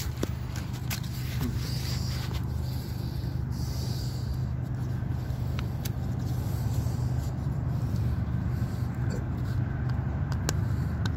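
Steady low rumble of highway traffic, with a few light clicks as the phone is handled.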